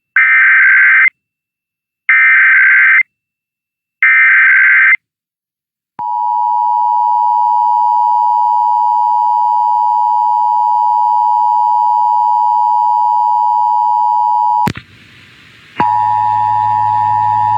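Emergency Alert System test signal: three one-second bursts of the SAME digital header tones, about a second apart. About six seconds in, the steady two-tone EAS attention signal (853 and 960 Hz) starts. It breaks off suddenly with a click near the end, then resumes a second later over a low hum.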